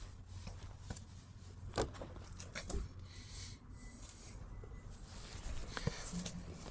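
Quiet room with a low hum and a few faint, scattered clicks and knocks from a wrench and bike parts being handled at the rear wheel.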